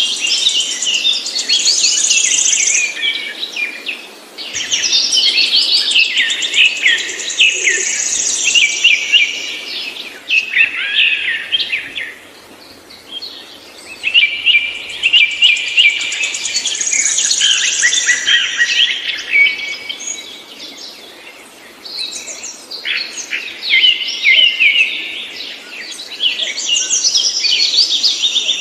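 A songbird singing long, fast, twittering phrases of several seconds each, broken by short pauses.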